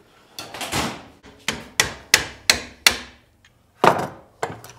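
Hammer striking a wooden drawer side to knock old staples back out: a run of sharp blows, five in quick succession about three a second, then another after a short pause.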